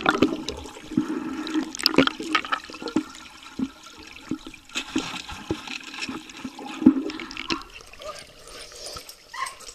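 Pool water churned by a swimming pit bull terrier, heard as gurgling, sloshing water with irregular knocks from her paddling strokes.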